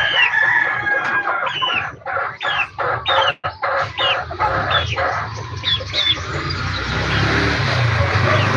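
Young chickens calling: a run of short, high, falling peeps about two a second, thinning out after about five seconds, over a low rumble that builds in the second half.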